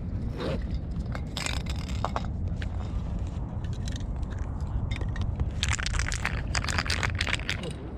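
Bursts of rapid clicking and scraping, about a second and a half in and again for the last few seconds, over a steady low outdoor rumble.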